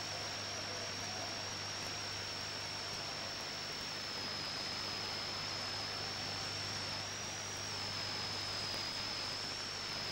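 Steady hiss with a constant high-pitched whine and a low hum underneath: background noise of an old videotape recording.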